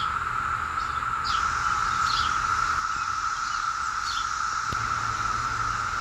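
Chorus of many male periodical cicadas calling together: a steady, unbroken, high drone.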